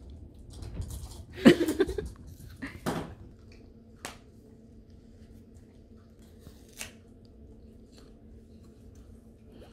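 Morkie puppy chewing on a plastic toy: scattered sharp clicks and crunches of teeth on plastic. A louder brief sound comes about one and a half seconds in, and single sharp clicks near four and seven seconds, over a steady low hum.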